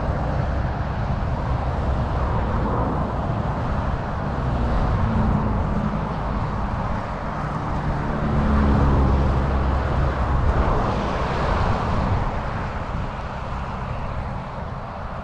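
Wind buffeting an outdoor microphone: a loud, gusting rush heavy in the low end. A faint low drone swells and fades around the middle.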